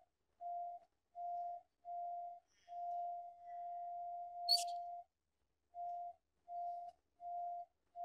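Radiodetection RD8000 cable locator beeping as it tracks the transmitter's signal sent down the copper cables that share the optic fibre's conduit: one steady pitch pulsed about one and a half times a second, held as an unbroken tone for about two seconds in the middle. A short sharp click comes about four and a half seconds in.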